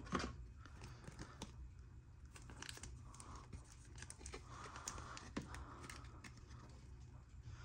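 Faint clicking and rustling of trading cards being handled and flipped through by hand.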